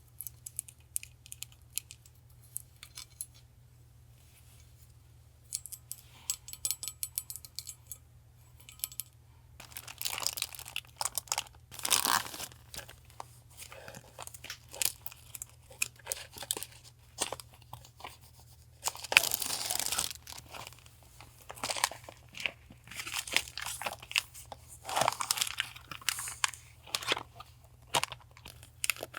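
Parcel packaging being handled, then torn open and crinkled by hand. Light scattered ticks at first, then about ten seconds in a long run of tearing and crinkling. A steady low hum from a nearby refrigerator runs underneath.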